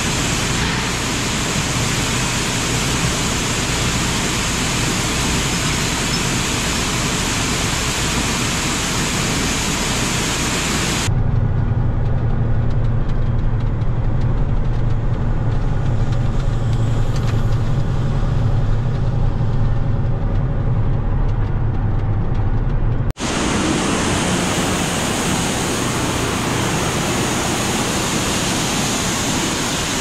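Steady rushing noise of shelled corn pouring from a hopper-bottom grain trailer through the dump-pit grate. About 11 seconds in, it changes to the steady low hum of the semi truck's diesel engine heard from inside the cab. About two-thirds of the way through, it changes back to steady rushing noise of the grain-handling equipment.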